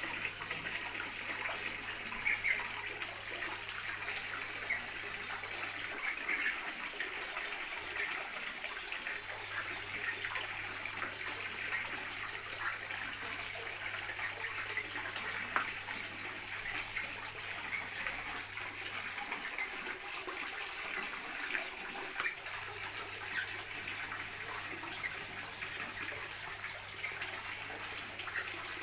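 Steady rush of running water, with many short high chirps or splashes scattered through it. A low hum runs under it and cuts out twice for a few seconds.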